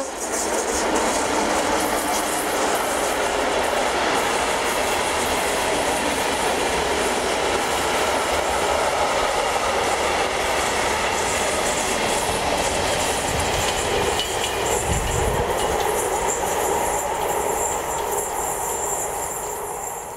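Freight train of tank and flat wagons rolling past on the main line, with a steady clatter and rumble of wheels on the rails, fading near the end as the last wagons draw away.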